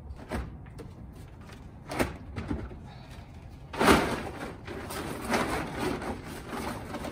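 A couple of light knocks, then a silver plastic tarp shaken open with a loud flap about four seconds in, followed by steady crinkling and rustling as it is spread out.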